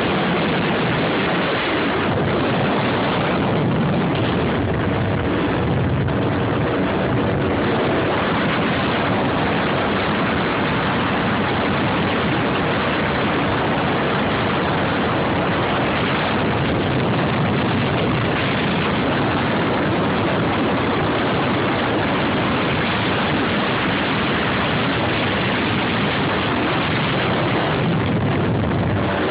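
Jet ski engine running steadily at speed under a loud, even rushing noise of wind and water, with a faint steady engine tone beneath.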